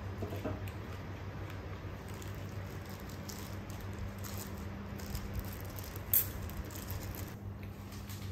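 Disposable plastic glove crinkling and rustling in small ticks while a hand picks at sauced fried chicken, over a steady low hum. One short, sharp click about six seconds in.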